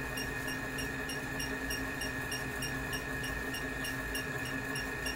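Steady background hum and hiss with a constant high whine and faint, evenly spaced high ticks a few times a second; no distinct event stands out.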